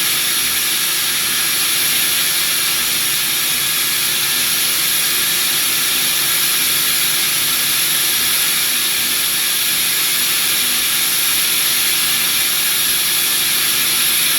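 CNC router running steadily while machining a mold: a steady high hiss with a faint low hum beneath it.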